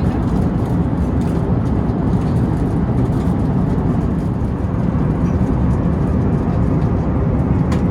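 Steady cabin noise of an Airbus A350-900 in flight: an even rumble of airflow and engines, with no change in level.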